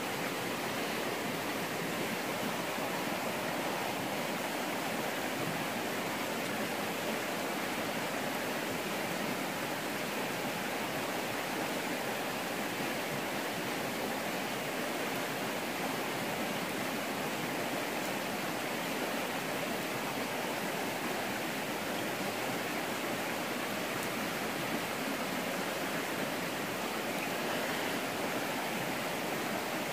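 Steady rushing of flowing river water, an even hiss with no breaks or separate sounds.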